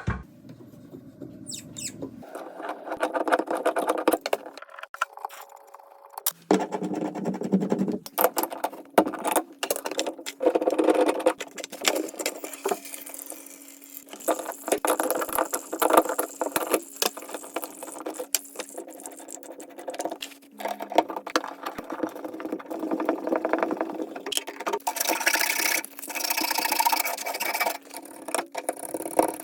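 Hands-on plumbing work: a run of sharp clicks, knocks and scrapes from tools and fittings being handled, cut together in short clips. A steady low hum runs under much of it.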